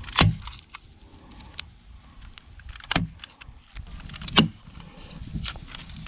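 Sharp knocks of work on heavy timber, three louder ones spread irregularly with lighter clicks between, over a low rumble.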